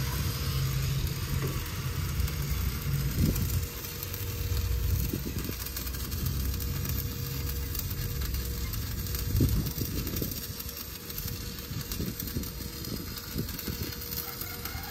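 Heavy diesel engine running at low speed, its hum strongest for the first few seconds, with irregular knocks and rattles and one louder knock near the ten-second mark.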